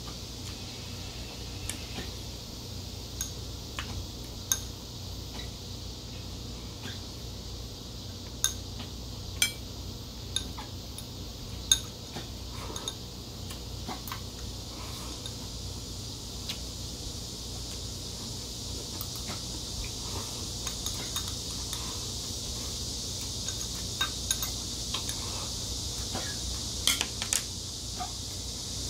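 Metal chopsticks clicking against a ceramic rice bowl and dishes during a meal: scattered sharp clicks, a cluster near the middle and another near the end, over a steady faint hiss.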